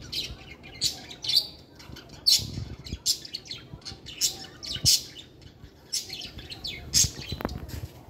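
Budgerigars chirping: a run of many short, high chirps, some overlapping.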